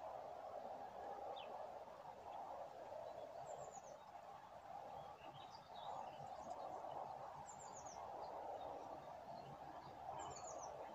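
Faint calls of small songbirds: short, high chirps, with a quick falling phrase heard three times, over a steady low hiss of background noise.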